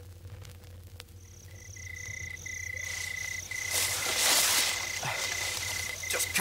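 Jungle sound effect of insects chirping in a steady pulsing trill. It begins about a second in over faint record crackle and hum, and a loud hissing swell of jungle ambience builds over it from about four seconds in.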